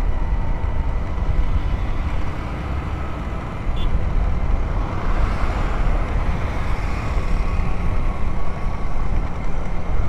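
Riding a motorcycle: steady engine and road noise with wind rumbling on the microphone, and another vehicle passing close by about five seconds in.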